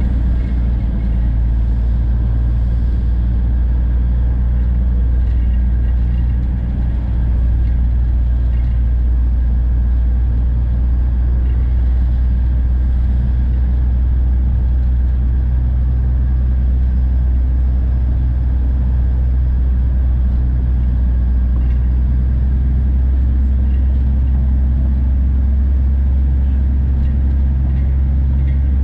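Diesel locomotive of a narrow-gauge mountain train running steadily under way, heard from the driver's cab: a loud, constant low engine drone with running noise.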